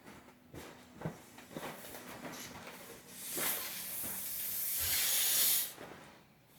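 Someone blowing into the valve of a small inflatable pool toy: a long breathy hiss of air that builds for about two and a half seconds, starting about three seconds in, after some light clicks and rustles of handling.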